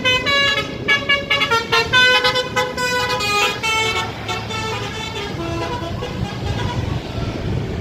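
An Agramas intercity bus's telolet horn playing a quick tune of short notes that change pitch every fraction of a second. The tune dies away about four seconds in, leaving bus engine and traffic noise.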